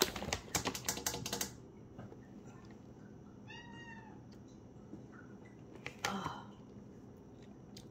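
Tabby cat giving one short, high, arching meow about three and a half seconds in, begging for the yogurt on the spoon. Before it comes a quick run of sharp clicking taps in the first second and a half, and a short clatter sounds about six seconds in.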